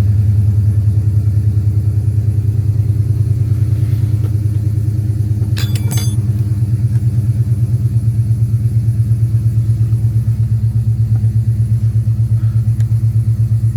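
Dodge Magnum's engine idling shortly after a cold start: a steady low rumble with even pulses. Two brief high-pitched tones sound about six seconds in.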